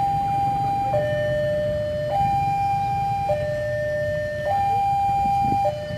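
Electronic two-tone warning alarm of a railway level crossing, switching back and forth between a higher and a lower tone, each held a little over a second: the crossing is signalling an approaching train. A steady low rumble runs underneath.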